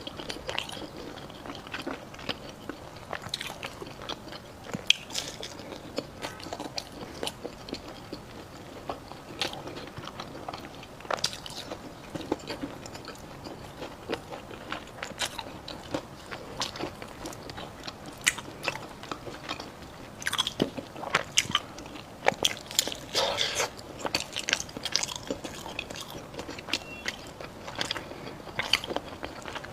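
Close-up biting and chewing of mi san dao, a honey-glazed fried Chinese pastry: repeated crisp crunches with chewing between them, coming thickest about two-thirds of the way in.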